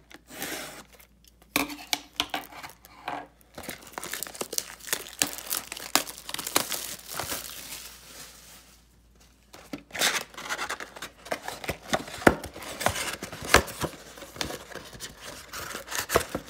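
Plastic shrink wrap being torn and peeled off a sealed cardboard trading-card hobby box, crinkling and crackling in irregular bursts, with a short pause a little past halfway before more crinkling.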